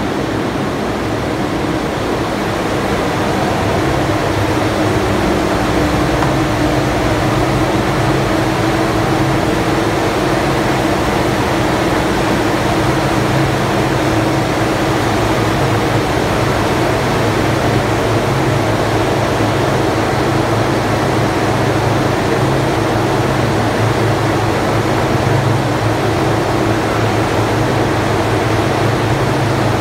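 Hydroelectric turbine-generator unit running, heard from inside its turbine pit: a loud, steady rush of machine noise with a constant low hum beneath it.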